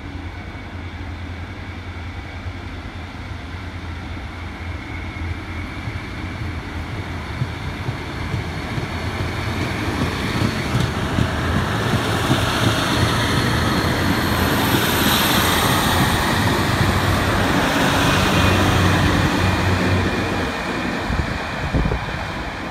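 A two-car Class 150 diesel multiple unit passing along a station platform: a steady diesel engine hum under rising wheel-on-rail noise. It grows to its loudest about two-thirds of the way through as the train goes by, then fades as it pulls away.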